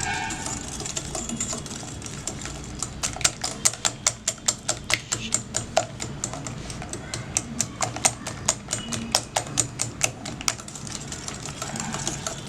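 Eggs and sugar being beaten by hand in a bowl: the utensil clicks against the side of the bowl at about four strokes a second, starting about three seconds in.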